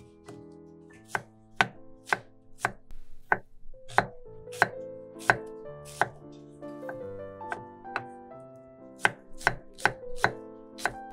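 Chef's knife slicing onion on a wooden cutting board: sharp knocks of the blade hitting the board, about two a second, starting about a second in. Soft background music plays underneath.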